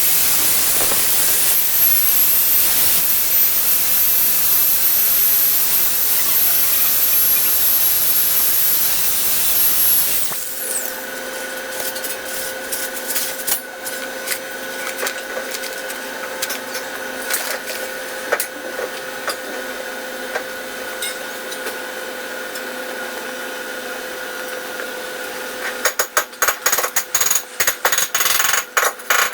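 Metalworking tool noise. A loud hiss with a thin high whistle lasts about ten seconds and cuts off. A steady hum with scattered clicks follows, then a quick run of rapid tapping near the end.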